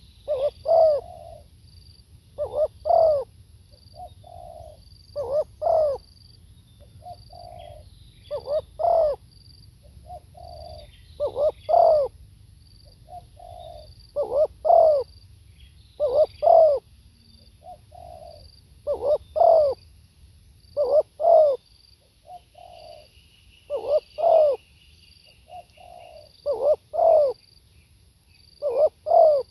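Spotted dove cooing over and over, each phrase a louder doubled coo about every two to three seconds, with a softer coo between phrases. Faint high chirping repeats in the background.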